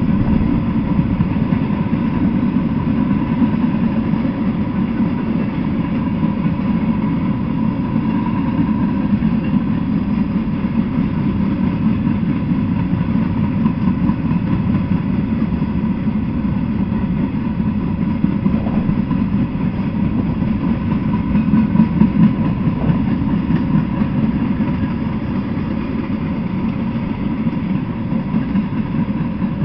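A freight train of empty intermodal flatcars rolling past on the track: a steady rolling noise of steel wheels on rail.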